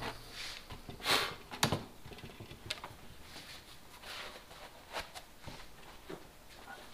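Handling clatter at a workbench: a few sharp clicks and knocks, the loudest about a second in, then scattered lighter taps, as a hand propane torch is set down on the bench and leather work gloves are pulled on.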